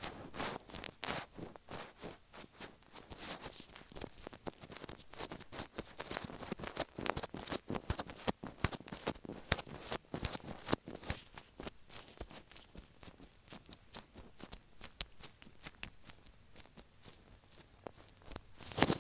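Latex-gloved fingers tapping and rubbing on an earphone microphone, close-miked: a dense run of irregular taps with sticky, crinkly rubbing. They thin out in the second half, with one louder tap near the end.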